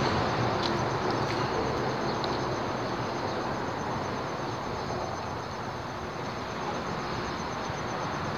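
Road traffic crossing the highway bridge overhead: a heavy rushing rumble that slowly fades as a vehicle passes. A faint, steady, pulsing high buzz runs under it.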